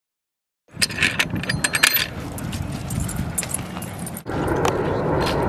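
Metal tags on a Siberian husky's collar jingling as the dog comes right up to the microphone, starting about a second in, followed by a steady rush of wind noise on the microphone.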